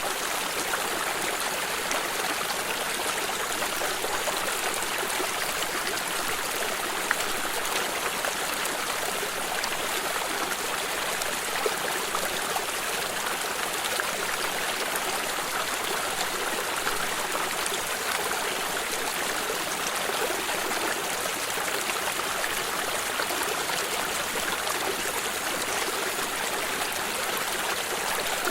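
Water stream running steadily over rocks, a continuous trickling and babbling with small splashes.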